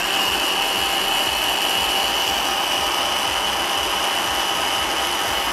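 Hand blender with a chopper bowl switched on and running at a steady speed, its motor giving a steady high whine as the blades blend soaked fenugreek seeds with water and oils into a paste.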